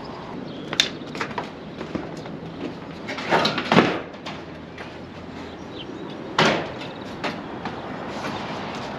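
Damaged sheet-metal roofing being handled: a few sharp metallic knocks and bangs, the loudest a cluster about three and a half seconds in, over steady wind noise on the microphone.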